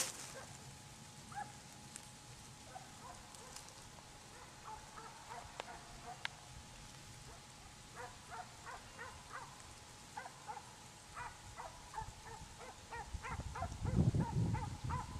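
Hunting dogs baying in the distance in short repeated barks as they run a hare, the calls coming faster and more often in the second half. A low rumbling on the microphone near the end.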